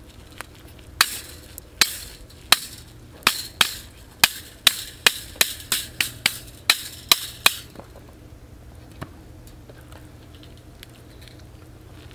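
A quick run of about fifteen sharp knocks, roughly two a second, starting about a second in and stopping at about seven and a half seconds: hand work in a pan.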